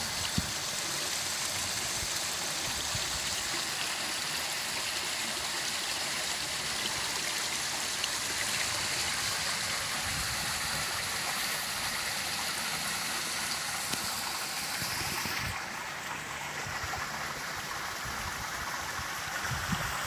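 Steady rushing hiss of outdoor background noise, with its higher part dropping away about three-quarters of the way through.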